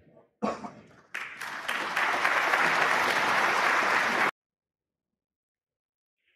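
Snooker audience applauding as a frame is conceded and won. The applause swells over the first two seconds, holds steady, then cuts off abruptly about four seconds in.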